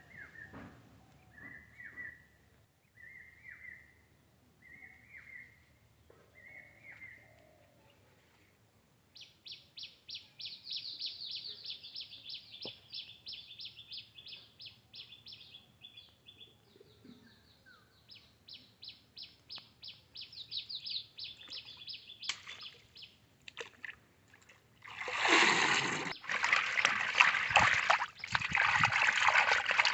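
Birds calling outdoors: a short call repeated about once a second, then a long run of rapid, even high chirps. Near the end, loud splashing of water being poured or sloshed takes over.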